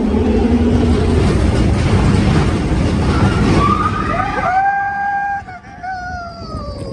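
Expedition Everest roller coaster train rumbling loudly along the track, then riders screaming. From about three and a half seconds in, several long, overlapping screams start, hold, and slide down in pitch near the end as the train plunges down the outdoor track.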